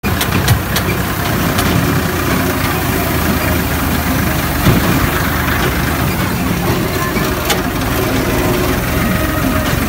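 Diesel tractor engine running steadily, heard from the driver's seat, with a few sharp clicks in the first second and another about seven and a half seconds in.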